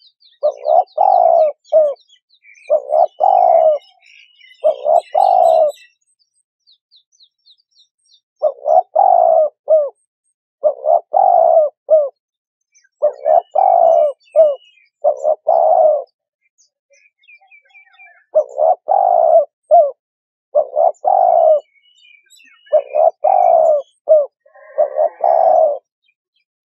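Spotted dove cooing: loud repeated coo phrases in runs of four, with a pause of about two seconds between runs. Faint high-pitched chirps of small birds sound in the background.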